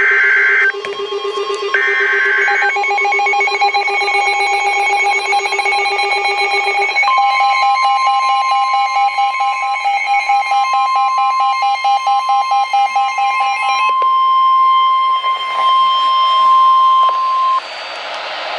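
NOAA Weather Radio alert: the last two bursts of the SAME header's screeching data tones, then rapid electronic alarm beeping. Over the beeping, the steady 1050 Hz warning alarm tone comes in about seven seconds in and holds for about ten seconds, signalling that a warning follows.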